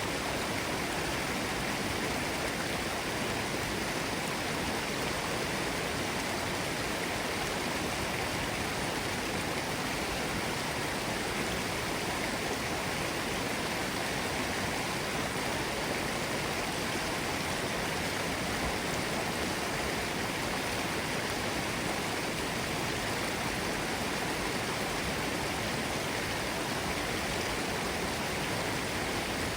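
Mountain stream bubbling steadily, an even, unchanging rush of running water.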